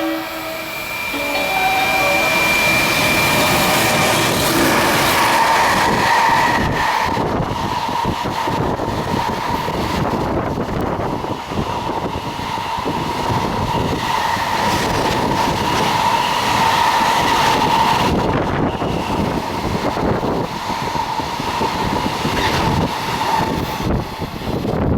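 Freight train hauled by an EF210 electric locomotive running through at speed, wagon after wagon: a continuous rumble with dense clacking of wheels over the rails and a steady high tone.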